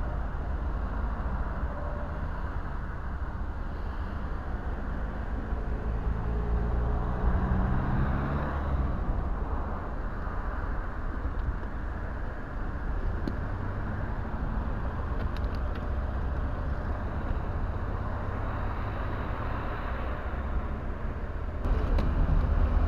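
Steady low rumble of motor vehicles and road traffic, which grows louder near the end.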